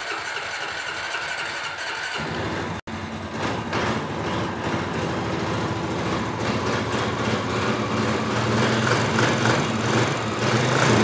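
A freshly rebuilt 2003 Honda Rancher 350's single-cylinder engine being started on choke: the electric starter cranks with a steady whine for about two seconds, then the engine catches and settles into a steady idle.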